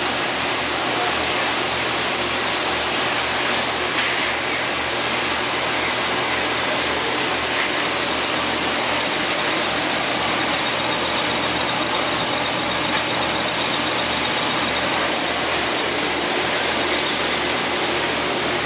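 Poultry coop washer running: a steady rush of water spray over a low, even motor hum, with a few faint knocks.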